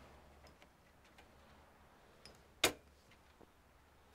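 Small clicks and taps of parts and cable connectors being handled inside a desktop PC case, with one sharp click about two and a half seconds in.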